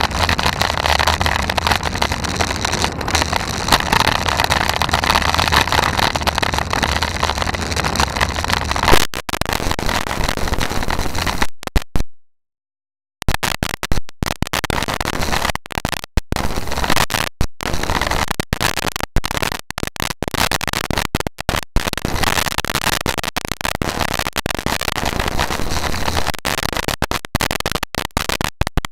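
Wind and road noise rushing over a bike-mounted camera's microphone while riding uphill. About nine seconds in, the recording starts cutting out: it drops to silence for about a second, then stays choppy with many sudden short gaps.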